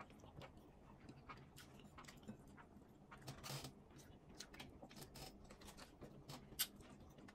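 Near silence with faint scattered clicks and smacks of people eating with their hands, chewing and handling food, slightly louder about three and a half seconds in and again near the end.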